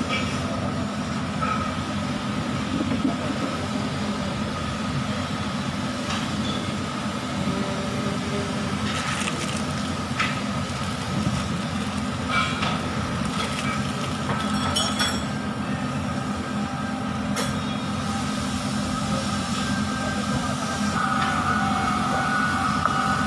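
Steady mechanical drone of background machinery, with scattered light clicks and a crinkle of clear plastic wrapping as a new axle oil seal is unwrapped and handled.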